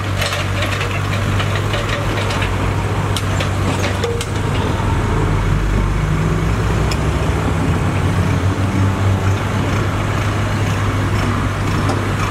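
Kobelco mini excavator's diesel engine running steadily. From about four seconds in the engine works harder and its note deepens as the upper body and boom swing around. A few light clicks come a little before that.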